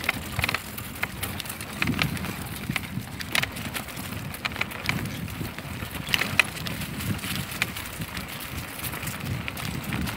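Bicycle riding along a dirt forest path: a steady low rumble of the ride, with many scattered sharp clicks and rattles, a few of them loud.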